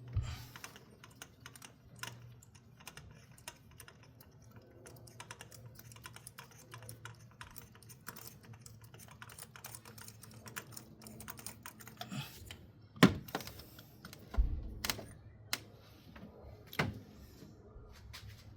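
Fast, dense clicking of a ratchet and hand tools working on the engine's spark plugs and ignition coils, sped up, with a few louder knocks in the second half.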